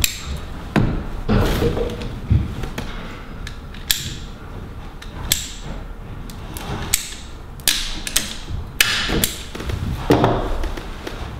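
Plastic heating pipe being cut to length with ratchet pipe shears and handled among the pipes under the floor: irregular sharp clicks and knocks with rustling between them.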